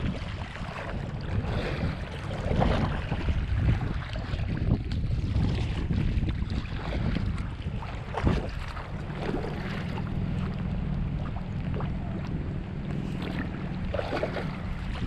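Kayak paddle strokes in the water with wind buffeting the microphone; a few stronger splashes stand out, and a low steady hum comes in about nine seconds in.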